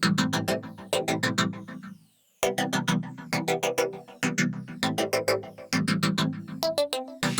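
Electronic music: synthesizer and keyboard over a steady drum-machine beat, cutting out briefly about two seconds in before the beat resumes.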